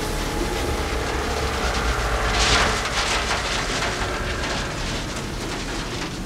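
Film sound effect of a cloaked spaceship landing: a steady deep rumble with rushing wind, and a louder hissing gust about two and a half seconds in.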